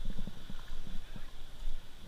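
River water sloshing and splashing close to the microphone, irregular low splashes as someone wades through shallow water.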